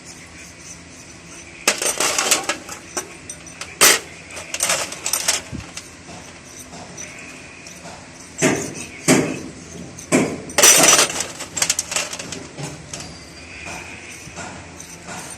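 Intermittent clatter: hard objects knocking and rattling against each other in about half a dozen short bursts, a few seconds apart.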